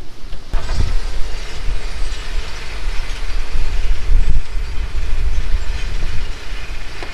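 Sand-screening machine running with a loud, steady rumble and rattle, separating storm debris out of sand. The noise steps up about half a second in.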